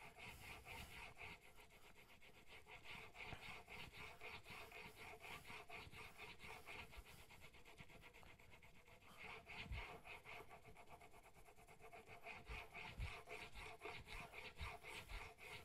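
Faint, rhythmic back-and-forth scraping of a hand-forged steel chisel being honed on a wet whetstone, held in a Sharp Skate honing guide. The strokes grow louder again about nine seconds in.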